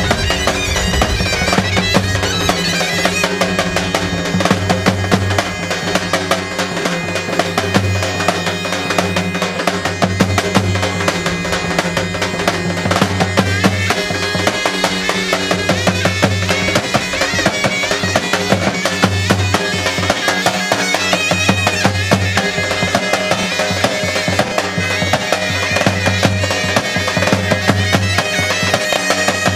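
Zurnas (folk shawms) playing a loud, nasal, reedy melody together, over a large double-headed tapan drum beaten in a steady dance rhythm: live Balkan folk dance music.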